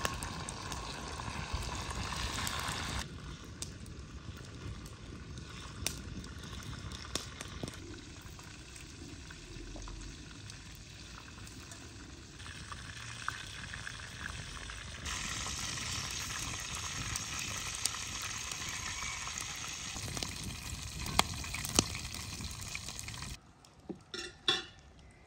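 Beef-stuffed eggplant rolls sizzling in a frying pan over an open wood fire, with a few sharp clicks. Near the end the sizzling stops and a few separate knocks are heard.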